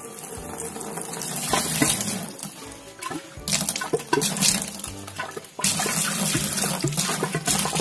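Water running from a tap into a bucket. The flow is uneven and sputtering, easing off briefly a couple of times before gushing again.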